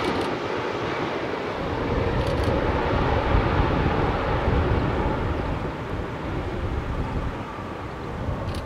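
Airbus A310-300 freighter's jet engines on landing approach and flare, a steady rushing noise that slowly fades as the aircraft moves away down the runway, with wind rumbling on the microphone.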